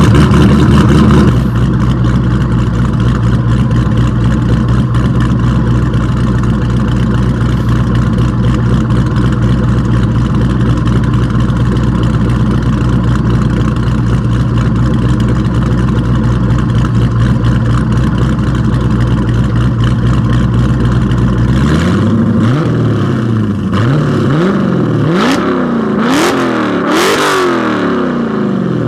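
Cammed 6.1-litre Hemi V8 of a 2009 Dodge Challenger SRT8 (Inertia SRT MAX Plus cam, catless midpipes, resonator delete, stock mufflers), heard at the tailpipes. It idles steadily, and about 22 seconds in it is revved in a quick series of blips, each rising and falling.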